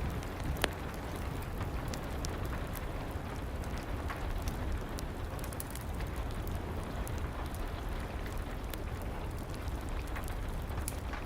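Steady rain falling, mixed with the scattered sharp pops and crackles of a wood fire burning in a fireplace.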